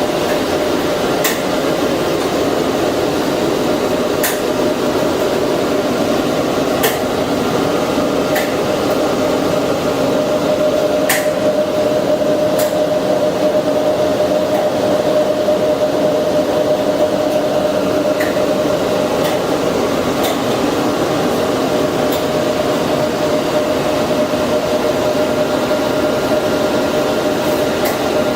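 Steady machine hum with a constant whining tone, broken by a few sharp clicks.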